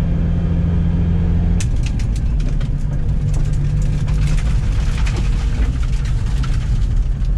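In-cabin noise of a turbo BMW E30 with no sound deadening or carpet: first coasting in neutral at about 40 mph, with tyre and road drone over the idling engine. After about a second and a half it changes to a slower drive, the engine running steadily with many small clicks and rattles.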